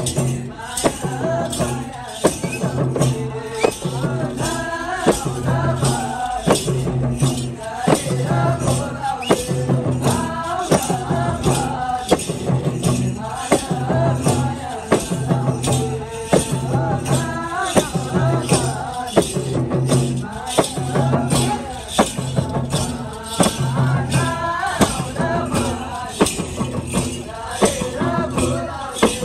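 Live Kaura music: madal drums played in a steady, even beat with voices singing over them.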